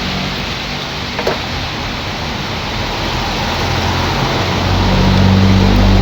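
A motor vehicle's engine hum over a steady rushing noise, the engine growing louder about five seconds in, with a single brief click a little after one second.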